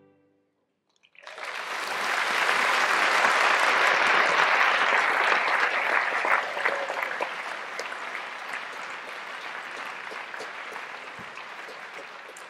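Theatre audience applauding, starting suddenly about a second in after the music stops, swelling quickly and then slowly tapering off.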